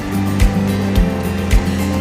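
Background music with a steady beat: a kick drum at about two beats a second over sustained bass notes.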